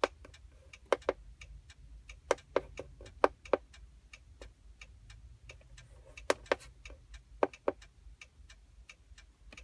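Buttons being pressed on a handheld key programmer: sharp, irregular clicks, often in pairs a quarter second apart, as someone steps through its menus.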